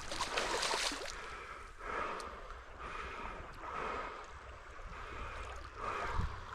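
Creek water running, with a burst of splashing in the first second as a large brown trout thrashes at the surface while being landed.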